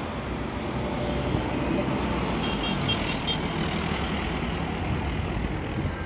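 Steady road traffic noise of cars driving past on a multi-lane city road, with a few short high chirps about halfway through.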